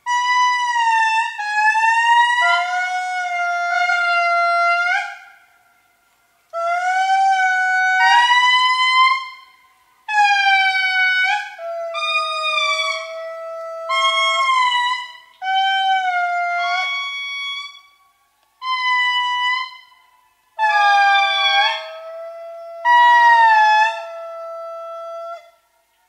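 Several lemurs calling together: long, wailing calls that overlap, mostly holding one pitch with short upward or downward turns, in bursts of one to five seconds separated by brief pauses.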